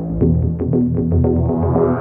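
Background electronic music: low held synthesizer notes under a quick pulse of short notes, with a rising sweep near the end.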